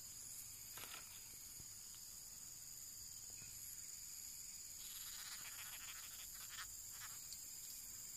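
Faint, steady high-pitched chorus of insects, with a few soft rustles about a second in and again between about five and seven seconds in.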